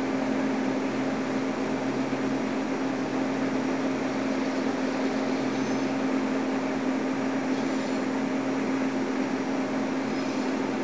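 Diesel locomotives' engines running steadily as the units move slowly: an even drone with a constant low hum.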